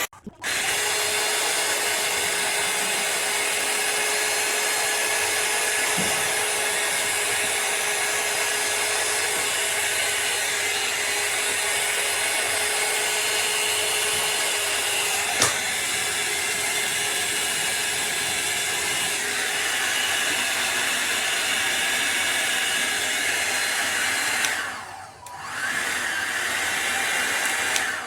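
Hot air styler (rotating blow-dryer brush) running: a steady rush of blown air with a faint motor hum. It cuts out briefly just after the start and again about 25 seconds in, with a single click about halfway, and stops at the end.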